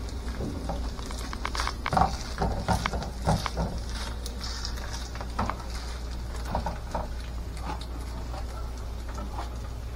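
Plastic spatula tapping and scraping against a nonstick frying pan while shredded potato pancakes fry in oil, with a faint sizzle underneath. The taps come irregularly, thicker in the first few seconds and sparser later.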